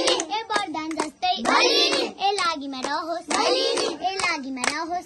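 A group of children singing a Tihar bhailo song together in chorus, clapping their hands along.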